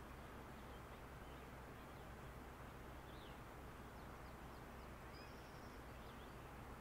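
Near silence: faint steady outdoor ambience with a few faint bird chirps about three and five seconds in.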